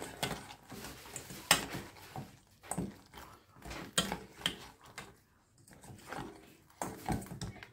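Sauce-coated raw chicken wings being worked around by hand in a small metal bowl: irregular wet squishes and light knocks against the bowl, spaced unevenly with short pauses.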